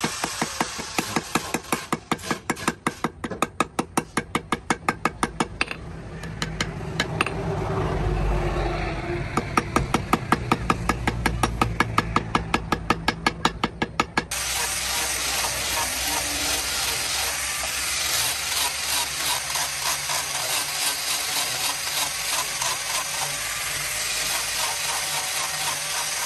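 Hammer tapping in quick, even blows, a few a second, peening over the metal pins of a wooden cleaver handle on a steel stake. About fourteen seconds in it gives way abruptly to an angle grinder with a sanding pad running steadily, sanding the pinned wooden handle.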